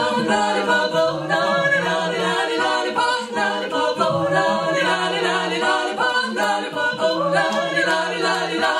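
Female barbershop quartet singing a cappella in close four-part harmony, a low sustained part under higher moving voices.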